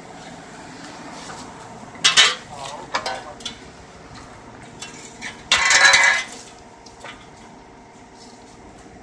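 Steel shovels scraping and clanking on the paved ground. There is a sharp scrape about two seconds in, a couple of lighter knocks, and a longer, louder scrape around the six-second mark. Under it all runs the steady engine hum of the idling Yanmar mini excavator.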